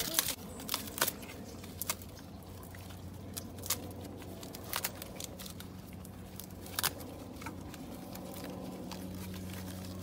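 Goats tearing and chewing fresh grass: scattered sharp snaps and crunches, several seconds apart, over a steady low hum.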